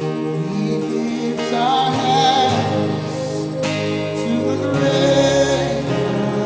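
Slow gospel worship music: sustained chords with a new chord struck about every two seconds, and a voice holding long wavering notes.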